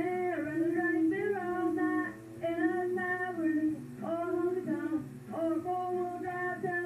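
A woman singing into a handheld microphone over backing music, in held, sliding notes with short breaks between phrases.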